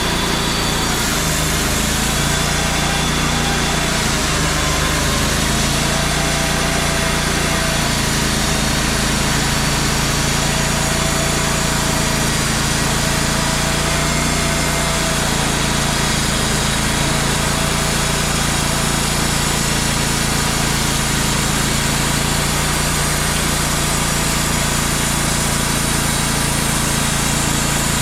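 Wood-Mizer portable band sawmill running with its engine at a steady, unbroken pitch.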